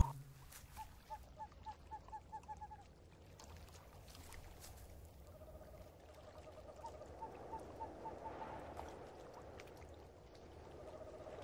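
Faint evening outdoor ambience with an animal calling in runs of short, evenly spaced notes, about four or five a second, repeating several times.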